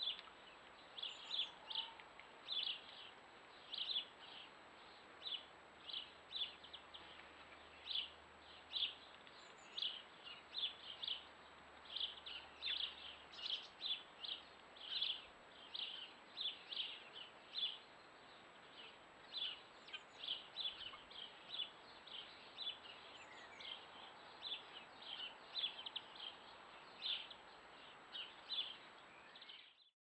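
Small garden songbird chirping over and over, short sharp notes about two or three a second, with a few thin higher notes now and then, over a soft outdoor hiss.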